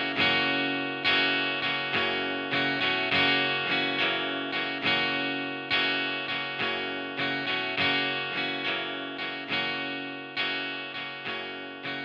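Instrumental music: picked guitar notes, each ringing out and fading, a few notes a second, with no singing.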